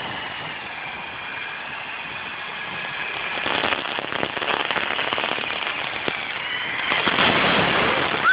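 Small battery-powered RC helicopter flying: a high motor whine that shifts in pitch. Then a rapid fluttering chop from the rotor blades grows louder as it comes close, loudest near the end.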